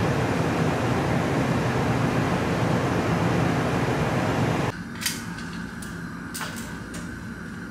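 A steady low hum and rush of ship machinery and wind on deck. It cuts off suddenly about two-thirds in, giving way to a quieter room with a steady fan hum and several sharp clacks of okey tiles being played.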